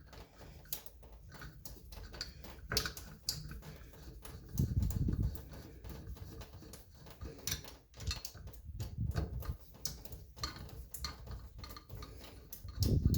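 Irregular clicks and taps of small hard parts and tools being handled while reassembling a shower valve, with a louder low bump about five seconds in and another near the end.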